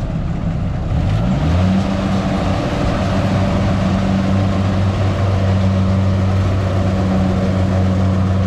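Kubota DC70 combine harvester's diesel engine running under load while cutting rice. It revs up about a second in, then holds steady at the higher speed with the noise of its working gear.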